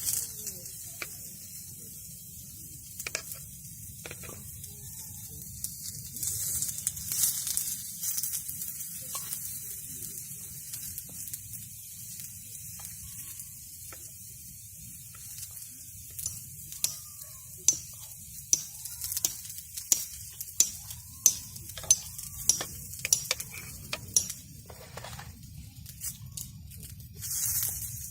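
Food frying in a pan: a steady sizzling hiss with sharp crackling pops that come thick and fast in the second half.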